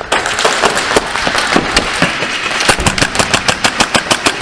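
Airsoft guns firing: scattered sharp cracks, then a fast, even string of shots at about six or seven a second starting about two-thirds of the way in.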